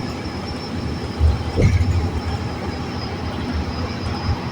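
Inside a moving NFI Suburban transit bus at freeway speed: a steady low rumble of engine and road noise, with a couple of bumps and rattles about a second and a half in.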